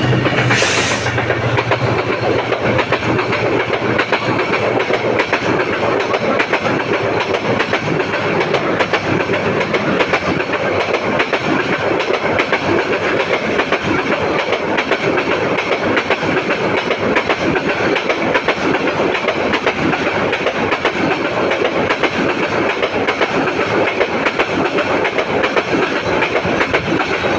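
A train running along the track: a steady, unbroken rattle of wheels on the rails that holds the same loudness throughout.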